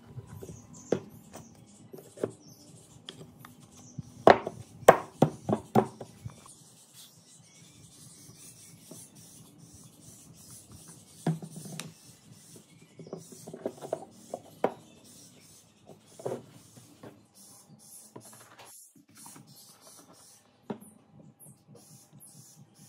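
Wood being handled and knocked at a workbench: scattered taps and knocks, a quick run of sharp knocks about four to six seconds in, and light rubbing between them.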